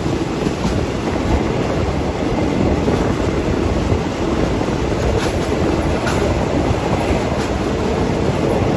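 Thai ordinary diesel passenger train running at speed, heard from inside a third-class carriage with its window open: a steady rumble of wheels on rail, with a few sharp clicks now and then as the wheels pass over the rails.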